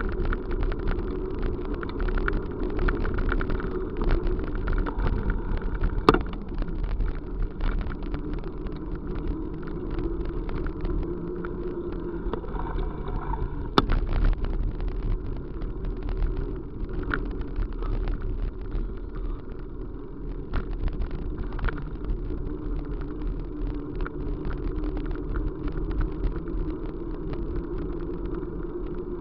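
Ride noise of a moving vehicle: a steady low rumble with a wavering hum, frequent small rattles, and two sharper clicks about six and fourteen seconds in.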